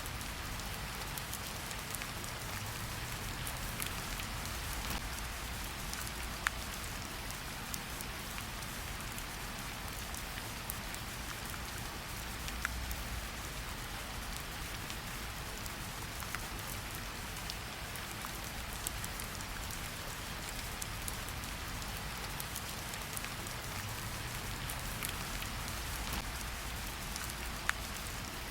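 Steady rainfall in a forest: an even hiss of rain with scattered sharp drips, a few louder single drops now and then.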